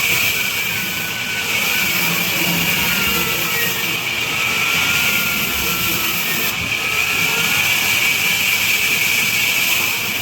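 Industrial vertical band saw running steadily, a continuous loud hissing machine noise with faint whines that slide up and down in pitch.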